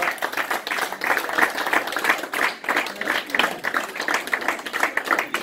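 A small group of people clapping their hands in applause, a dense continuous patter of claps.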